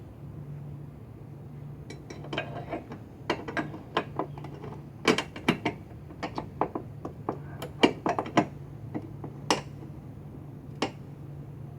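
A hand tool clicking and clinking against metal as the side step's mounting bolts are tightened: a run of sharp, irregular metallic clicks over a low steady hum.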